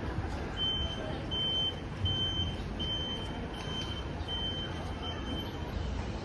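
An electronic beeper sounding a short, high, single-pitched beep seven times, about once every three quarters of a second, over low street rumble.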